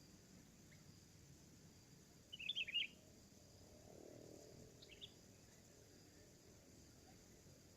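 Sooty-headed bulbul (kutilang) giving a quick burst of chirping calls about two and a half seconds in, then one brief call about five seconds in.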